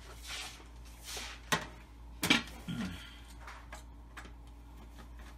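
Crock pot being handled and switched on: two soft brushing sounds, a click about a second and a half in, and a sharp knock a little after two seconds, over a steady low hum.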